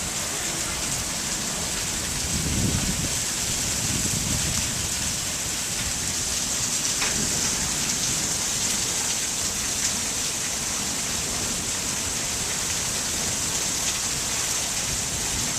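Heavy monsoon rain pouring down in a steady, even hiss, with a low rumble swelling a couple of seconds in.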